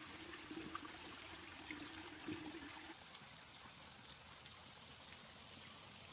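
Faint steady trickle of running water in a miniature model pond, with a low hum that stops about three seconds in.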